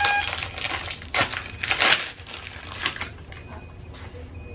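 Gloved hands crinkling and rustling a paper-and-plastic wipe packet, in several short bursts over the first three seconds.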